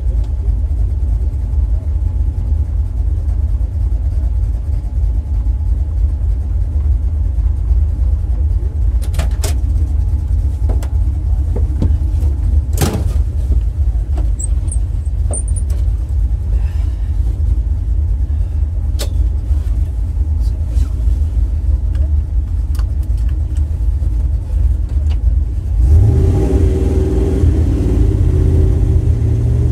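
A vehicle engine idles with a steady low rumble, heard from inside the cab, with a few sharp clicks around the middle. Near the end an engine revs up, its pitch rising.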